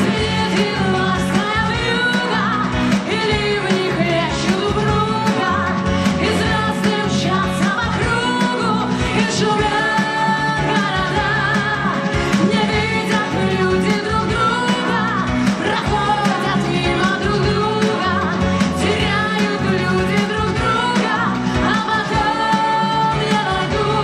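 A woman singing a song over full backing music, her voice wavering and gliding in long held phrases.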